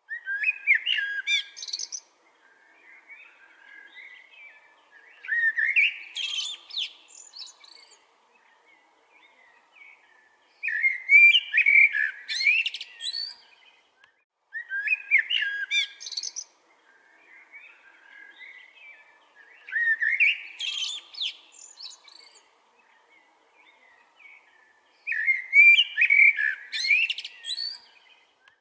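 A bird singing. Loud phrases of about two seconds each repeat every four to six seconds, with softer twittering between them.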